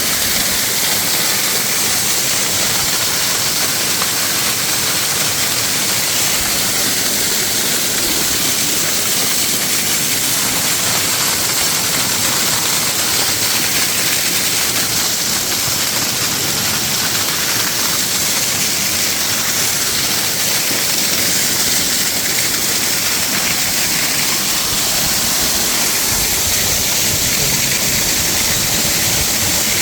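Waterfall: water pouring and splashing in a steady, loud rush with a strong hiss.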